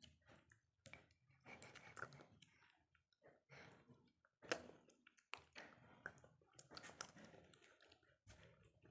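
Faint, scattered clicks and scrapes of plastic spoons in small plastic jelly cups, with soft chewing and slurping as jelly is eaten quickly.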